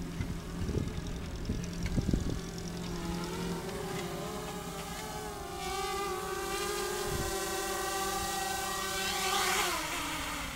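QAV250 quadcopter's brushless motors and propellers whining as it comes down to land, with a few thumps in the first couple of seconds. The whine swells near the end, then drops in pitch and fades as the motors spin down on touchdown.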